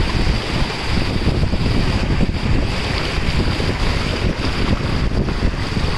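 Fast-flowing muddy floodwater rushing, with heavy wind buffeting on the microphone.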